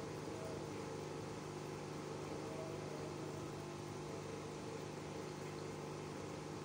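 Aquarium pump running with a steady hum over an even hiss.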